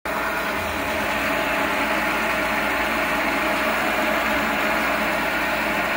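Chinese metal lathe running steadily under cut, its tool turning down metal bar stock.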